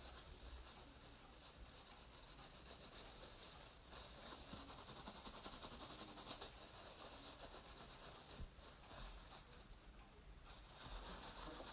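Palms rubbing and smoothing wet felting wool, a faint steady rubbing that grows a little stronger in the middle, working out small wrinkles that have formed in the felt.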